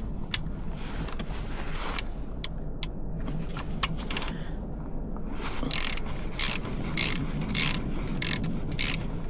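Socket ratchet clicking as it is worked on the bolt of the exhaust anode of a Yamaha F115 outboard. There are a few scattered clicks, then about two clicks a second over the second half.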